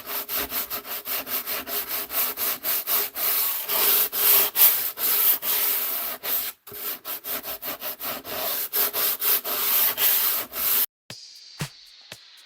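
Sandpaper on a foam sanding block worked back and forth over the filled balsa turtle deck of a model airplane fuselage, in quick, even strokes about four a second with a short pause a little past the middle. It cuts off suddenly near the end, where background music with a ticking beat begins.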